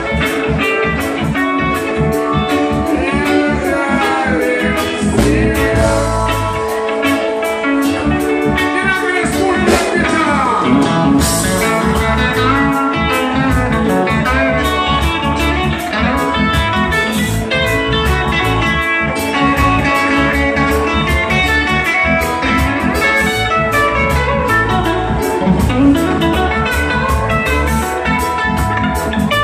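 Live band playing loud, with electric guitars to the fore.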